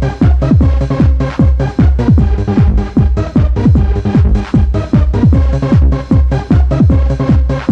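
Techno dance music: a heavy kick drum on every beat, each kick a falling thud, about two beats a second, under sustained higher tones.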